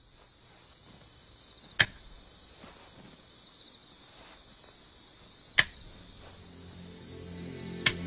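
Three sharp wooden clacks of shogi pieces being set down on the board, a few seconds apart, over a steady chirring of crickets; music fades in near the end.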